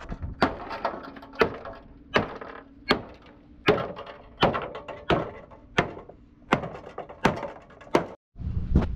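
Hammer blows on a rusted sheet-steel panel from a Tata truck cab, about eleven strikes at an even pace of roughly one every 0.7 s, each with a short metallic ring. The hammering cuts off suddenly just before the end.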